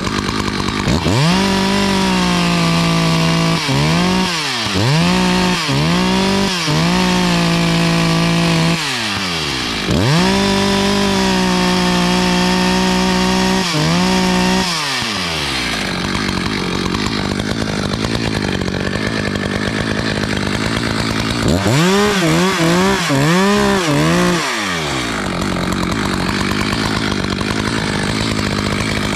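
Two-stroke chainsaw revving: it opens up to full throttle and holds there twice for several seconds, with runs of short throttle blips, dropping back to a steady idle between them.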